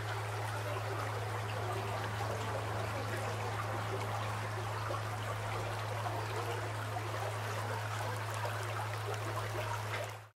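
Shallow stream running over a rocky bed, a steady babble of water with a constant low hum beneath it; it fades out quickly near the end.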